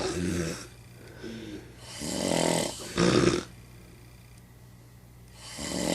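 A person with sleep apnea snoring in heavy breaths every three to four seconds. The snore about three seconds in ends in a short, louder snort.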